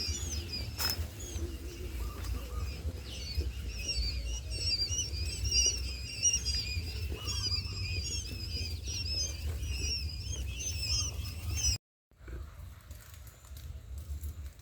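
Many small birds chirping busily at once, short quick calls overlapping without pause over a low steady rumble. The sound cuts off abruptly about twelve seconds in, and only quieter, sparser sound follows.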